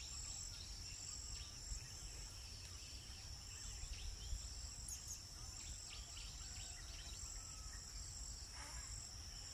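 Steady high-pitched insect chorus, crickets or similar bugs trilling without a break, with faint short bird chirps now and then and a low rumble underneath.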